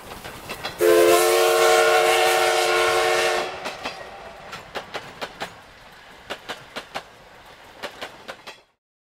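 Steam train sound effect: the whistle sounds one long blast of several pitches together for about two and a half seconds. Then the wheels clack over the rail joints, often in pairs, growing fainter and more widely spaced until they stop near the end.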